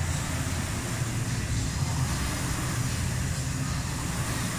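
Concept2 rowing machine's air-resistance flywheel fan whirring steadily as it is rowed.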